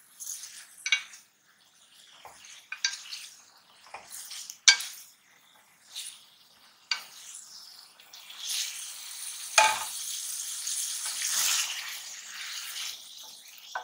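Boneless chicken pieces frying in oil in a metal karahi while a wooden spatula stirs and scrapes them, with sharp knocks of the spatula on the pan: the chicken is being seared with fried onions and ginger-garlic paste. The sizzle turns steadier about eight seconds in.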